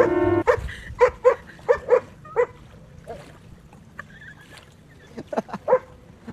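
A dog barking in short, high yips. There is a quick run of them in the first half, a pause, then another run near the end.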